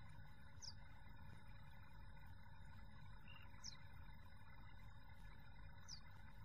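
Quiet outdoor ambience: a steady low rumble of breeze on the microphone, with a short, high chirp falling in pitch three times, two to three seconds apart.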